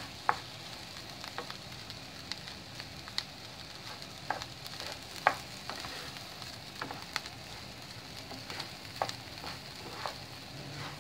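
Rice and chopped asparagus sizzling in a non-stick frying pan as they are sautéed dry, before any liquid goes in, while a wooden spatula stirs them continuously. The spatula's scrapes and knocks on the pan come as irregular light clicks over the steady sizzle.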